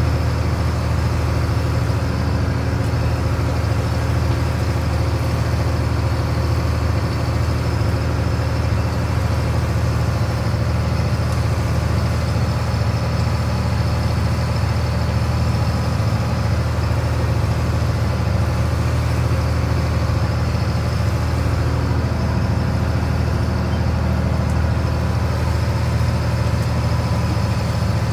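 Fishing boat's engine running steadily under way, a constant low hum.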